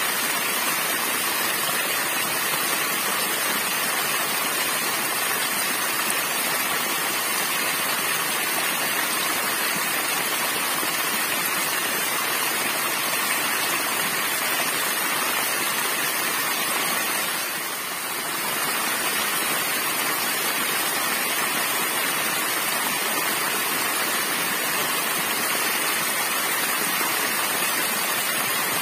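Small waterfall pouring over a rocky bank into a shallow pool, a steady splashing of falling water that dips briefly in level about two-thirds of the way through.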